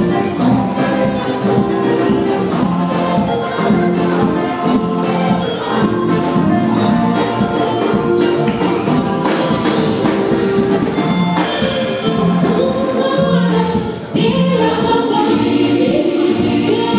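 Large mixed church choir singing a gospel song in harmony through loudspeakers, with amplified instrumental accompaniment.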